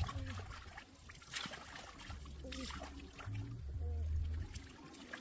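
Water splashing and trickling, with a few sharp splashes and brief fragments of a voice.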